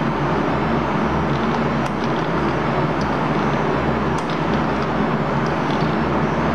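Steady drone of running shop machinery: a low hum under an even rushing noise, with a few faint ticks.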